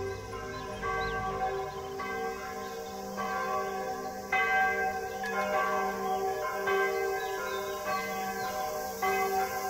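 Music track made of bell-like chimes: ringing tones struck about once a second over held notes, the strongest strike about halfway through.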